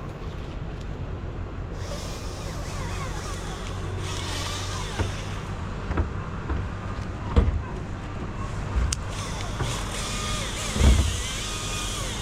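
An engine running steadily at idle, with several short knocks and clunks over it.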